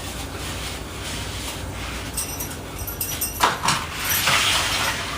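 Kitchen utensils and containers being handled: a couple of sharp knocks about three and a half seconds in, then a rough scraping rustle.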